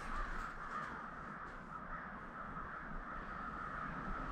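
A large flock of American crows cawing together, many calls overlapping into a steady chorus.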